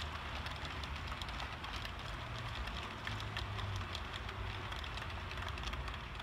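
00 gauge model train running along layout track: a steady rolling rumble from the wheels and motor, with a fast patter of small clicks.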